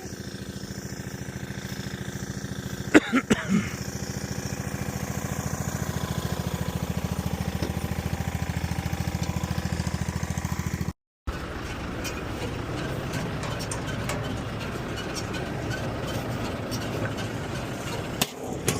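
Engine idling with an even, rapid chug, with a few sharp clicks about three seconds in. After a brief dropout near the middle, the engine runs on with a rougher, noisier sound.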